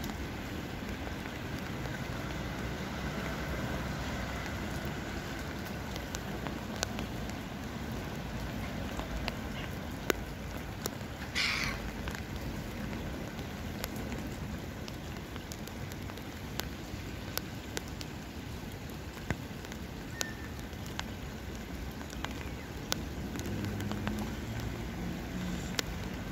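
Steady rain falling on open water, with many single drops ticking sharply. A short hissy burst comes about eleven and a half seconds in.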